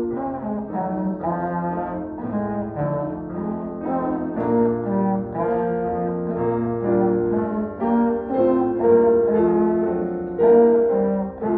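A solo brass instrument playing a melody of held notes, accompanied by a digital piano.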